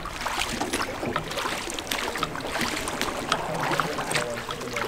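Small rowboat being rowed across calm water: oars dipping and pulling with irregular small splashes and knocks over a steady wash of water.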